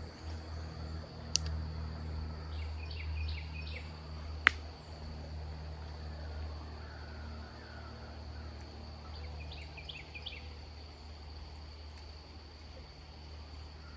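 Outdoor creek-side ambience: a steady high insect drone over a low rumble, with a bird's short chirping phrase twice. Two sharp clicks stand out, about a second and a half in and again about four and a half seconds in.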